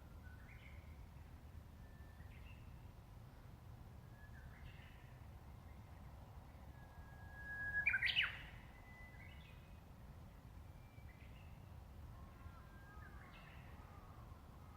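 Japanese bush warbler (uguisu) singing its "hoo-hokekyo" song: a long held whistle about eight seconds in that breaks into a loud, quick flourish. Shorter whistled bird calls come every couple of seconds around it.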